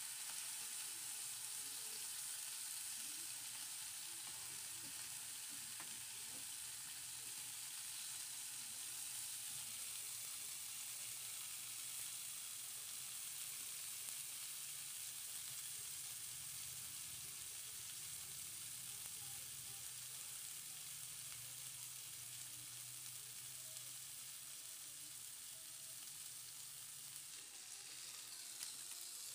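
Coated fish pieces shallow-frying in hot oil in a pan: a steady sizzle, with a steel spatula scraping the pan as the pieces are turned.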